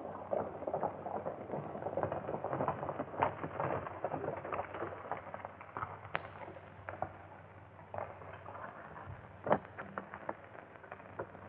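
Horses galloping, a dense patter of hoofbeats on a crackly, narrow-band early-1930s film soundtrack, with two sharp cracks about six and nine and a half seconds in.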